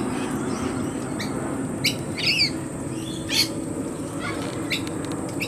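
Wild birds of a mixed flock calling: a scatter of about six short, sharp squawks and chirps over a steady background.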